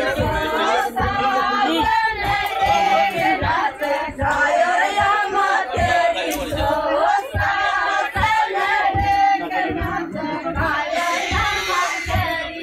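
Several women singing a folk song together in a group, with short low thumps underneath.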